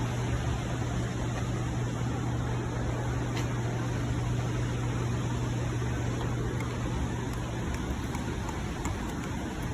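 Steady rushing of a small waterfall, an even unbroken noise, with a steady low hum underneath.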